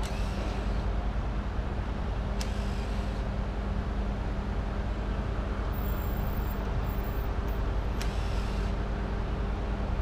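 Heavy diesel engine running steadily at a constant speed, a low drone with a steady hum, with two brief sharp clicks about two and a half and eight seconds in.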